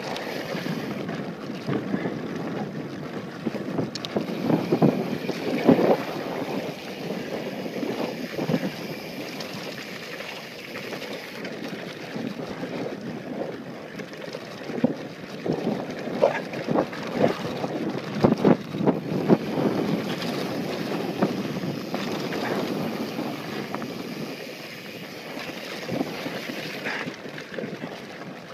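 Mountain bike rolling fast down a rocky dirt trail: steady wind rush on the microphone with tyre noise on dirt, and the bike rattling and knocking over bumps, the knocks heaviest a few seconds in and again past the middle.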